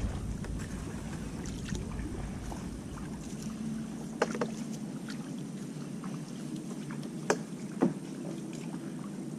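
Kayak being paddled: steady water noise from the paddle strokes, with three sharp knocks, one about four seconds in and two close together near the end.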